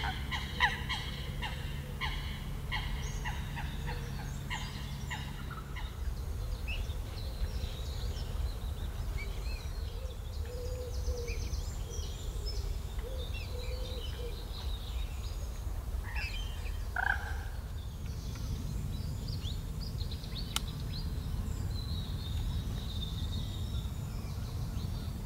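Birds calling over the water. A quick run of repeated harsh calls fills the first few seconds, then come scattered chirps and single calls, over a low steady background rumble.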